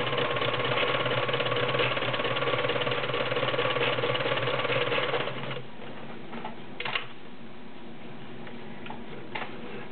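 Kenmore model 1941 sewing machine running steadily while stitching a wide zigzag, stopping about five and a half seconds in. A few short clicks follow.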